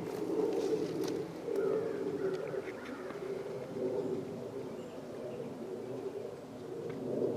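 Birds calling, with a low, continuous cooing that wavers throughout and a few faint higher chirps now and then.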